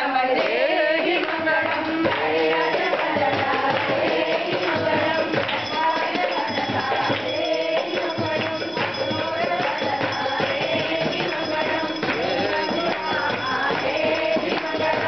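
Group devotional singing of divine names in a divyanamam bhajan, with jingling percussion keeping time throughout.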